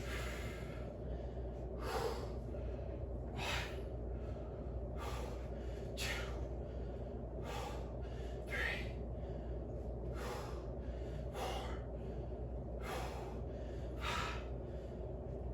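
A man breathing hard in short, sharp puffs, about one every second or so, in rhythm with barbell bench press reps.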